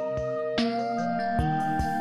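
Background music: held notes that slide upward in pitch over a light, regular beat.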